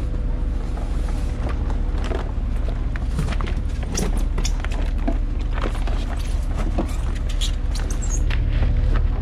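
A motor running steadily with a low drone, with frequent sharp clicks and knocks of handling over it.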